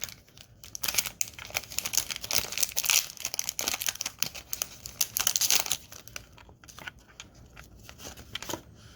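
Foil wrapper of a Pokémon trading card booster pack being torn open and crinkled in the hands for about six seconds, then quieter light handling clicks as the cards come out.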